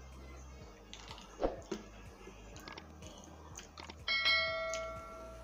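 A bright notification-style ding sound effect about four seconds in: a clear chime that rings and fades over about a second. Earlier come a couple of knocks as a glass jar is set down on a wooden board.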